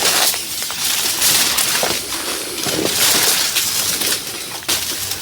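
Continuous crunching and rustling, a dense run of small crackles.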